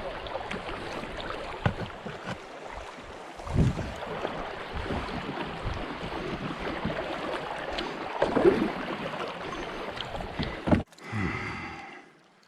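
Shallow river water rushing around a kayak, with the hull scraping and bumping over the stony bottom: a few sharp knocks and a rough scrape near the end.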